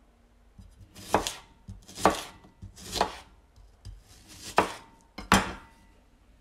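Kitchen knife slicing a small red onion into rings on a wooden cutting board: five main cuts about a second apart, each ending with the blade knocking on the board, with a few lighter taps between.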